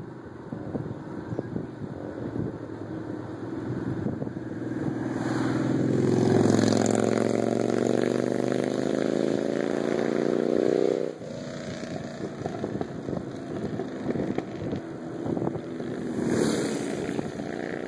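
A car passes and accelerates away, its engine note rising steadily in pitch before cutting off abruptly about eleven seconds in. Wind rush and rattling of a moving bicycle run underneath.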